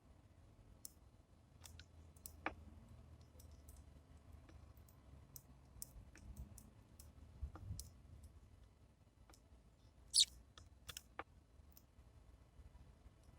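Sparrows pecking seed at a bird feeder: scattered light clicks and taps at irregular intervals, with one sharper click about ten seconds in.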